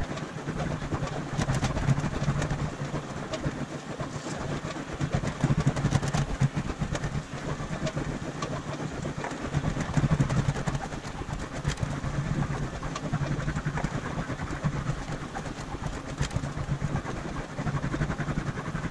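Aluminium sheet being rolled back and forth through an English wheel to shape a curved body panel: a low rolling rumble that swells and eases with each pass, with light metallic clicks and rattles from the flexing sheet.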